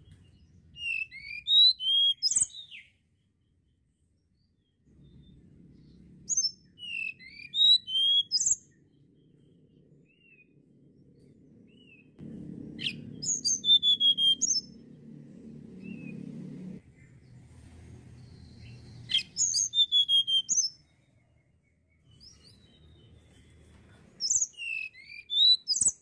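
Tledekan gunung, a caged blue flycatcher, singing five short bursts of quick, high, sweeping warbled notes, a few seconds apart. A faint low hum runs underneath and is louder in the middle.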